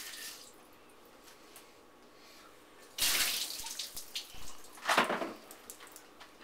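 Water from a kitchen sink faucet, stopping just after the start, then two short splashing gushes of water into the sink, about three and five seconds in.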